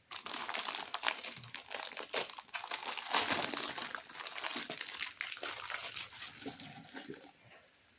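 Dense, irregular crinkling and crumpling of something being handled, fading away after about seven seconds.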